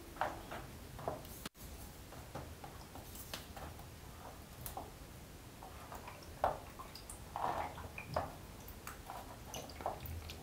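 Faint sloshes of photographic developer and small scattered clicks as a print is worked in a developing tray with plastic tongs.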